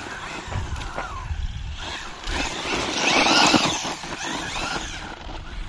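1/12-scale electric four-wheel-drive RC desert buggy running on a dirt track, its motor whining up and down with the throttle, loudest about two to four seconds in.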